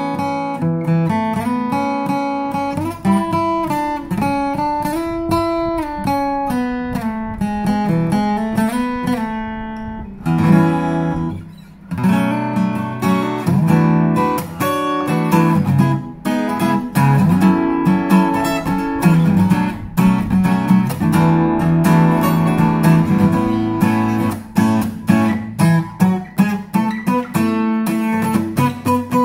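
1980s Japanese-made Aria W-20D dreadnought acoustic guitar played solo, chords with picked melody lines over a bass line. The playing dies away briefly about eleven seconds in, then carries on.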